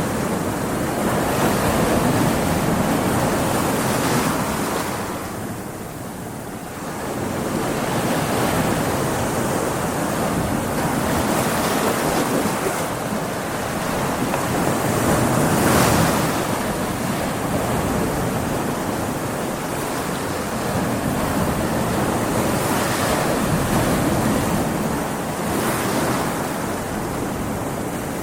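Stormy sea: continuous surf and breaking waves with wind, swelling and easing, with a brief lull about six seconds in and a louder wave crash around the middle.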